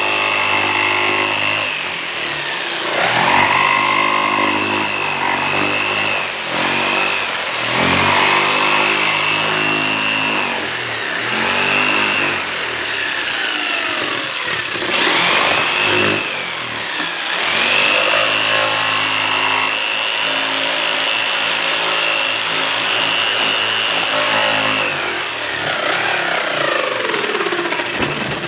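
Corded Ryobi jigsaw cutting plywood. The motor and blade run continuously, the pitch sagging and recovering every few seconds as the blade loads up in the cut.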